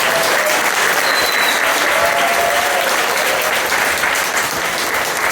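Audience applauding steadily, a dense patter of many hands clapping, with faint voices mixed in.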